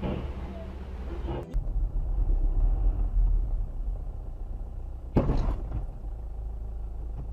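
Steady low rumble of a car driving, with one sudden loud thump about five seconds in that dies away quickly.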